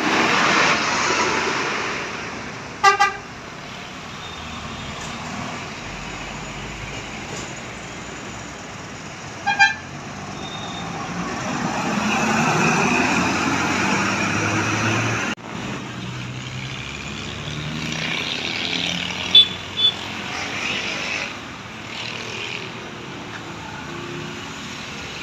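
Road traffic with vehicles passing, the noise swelling and fading. Short double horn toots sound about three seconds in, near ten seconds, and twice near twenty seconds.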